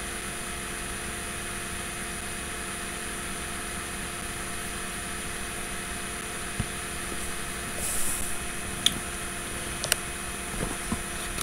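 Steady electrical hum with a faint fan-like hiss, and a few sharp clicks plus a brief burst of high hiss in the second half.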